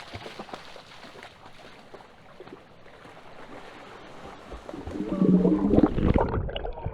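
River water flowing steadily, then about five seconds in loud splashing and sloshing as someone goes into the water.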